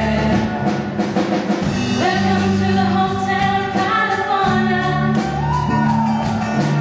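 Live pop-rock band playing, with drum kit and steady bass notes under female vocalists singing a melody.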